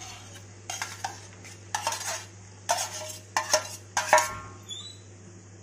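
A spoon scraping and knocking against a metal bowl as boiled brinjals, potatoes and cauliflower are tipped out of it into a metal kadai: a series of short scrapes and clinks, the loudest about four seconds in.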